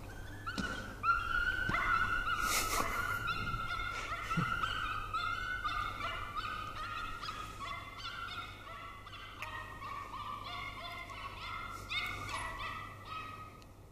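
A dog whining in high, wavering whimpers that run on almost without a break, loudest in the first few seconds and easing off toward the end.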